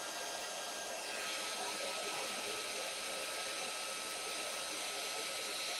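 Craft heat tool (embossing heat gun) running steadily, its fan giving an even hiss with a faint steady whine that joins about a second in. It is melting clear embossing powder on cardstock until the powder turns clear.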